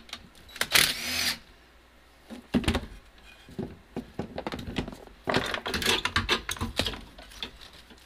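A DeWalt cordless impact driver runs in one short burst about a second in, backing out a bolt on a car's pedal assembly. Then metal clinks and rattles as the tool is set down and the pedal assembly is worked loose by hand, busiest between about five and seven seconds in.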